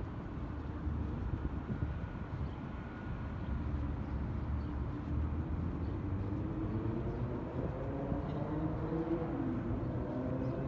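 Steady low rumble of city traffic, with indistinct voices of passers-by joining in the second half.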